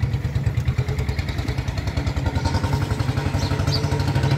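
Wind buffeting the microphone of a camera on a moving bicycle: a steady, fluttering low rumble.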